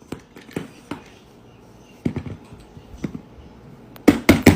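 Fidget toys being handled: scattered light clicks and taps, with a quick run of louder clicks near the end.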